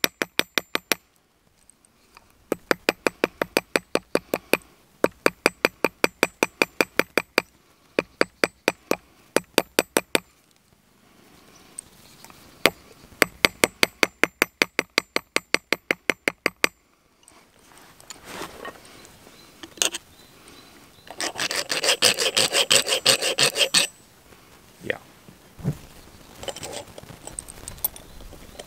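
A small hammer strikes copper wire on a small steel anvil in quick runs of about four or five ringing blows a second, with short pauses between runs: cold forging, hammering the wire flat. After the hammering stops, a rasping scrape lasts a few seconds, loudest about three-quarters of the way through, followed by a few scattered clicks.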